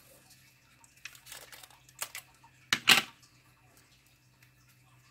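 A strip of adhesive tape being pulled off the roll: a short rustle and a click, then a loud, short rip just before three seconds in. A faint steady low hum runs underneath.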